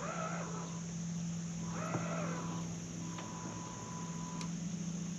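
Crow cawing twice, about two seconds apart, over a steady low hum.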